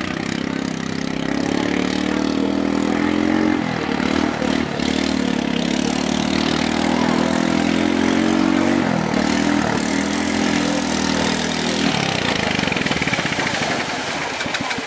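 Longtail boat's 13.5 HP 405cc single-cylinder engine, converted to run on LPG, running hard with a steady drone, its pitch dipping briefly about four and again about nine seconds in. From about twelve seconds the drone gives way to a rushing noise of wash and engine.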